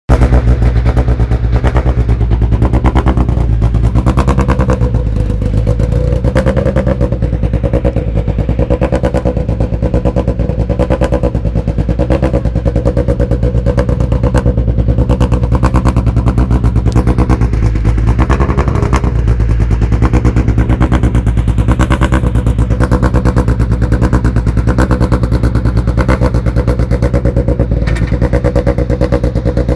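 Peugeot 307 WRC rally car's turbocharged four-cylinder engine idling with a lumpy, fast-pulsing beat and a few small throttle blips, waiting at a stage start.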